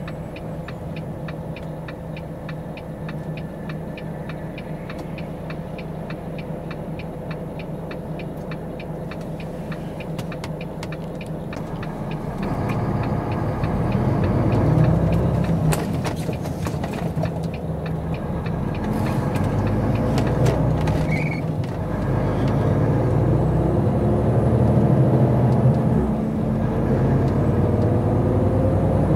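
Volvo FH truck's six-cylinder diesel engine, heard from inside the cab, idling with a regular ticking. About twelve seconds in the truck pulls away and accelerates, the engine note rising and dropping as it shifts up through the gears.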